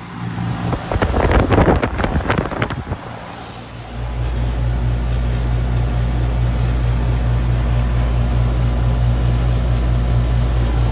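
A 2000 Goodman Desert Series heat pump's outdoor unit starting up: after some irregular knocking and rustling, the compressor and fan come on suddenly about four seconds in and settle into a steady low hum.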